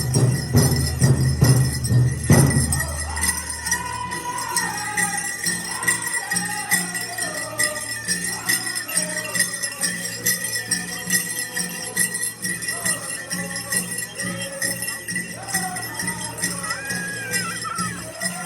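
Powwow drum and singing, with steady drumbeats that stop about two and a half seconds in; after that, jingling and scattered voices go on without the drum.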